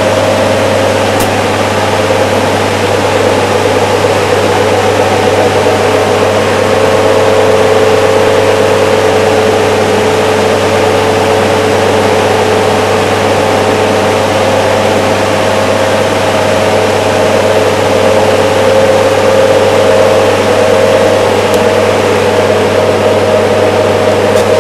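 Small motor driving the fan of a Coanda-effect disk aircraft, running steadily at about half power: a constant hum with a whine that wavers slightly in pitch over a rush of airflow. The motor is struggling, just about producing enough airflow for a little lift.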